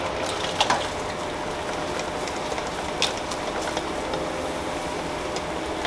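Stew being tipped out of a stainless steel pot into another pot on the stove, over a steady sizzling hiss, with a few light metal clinks from the pots.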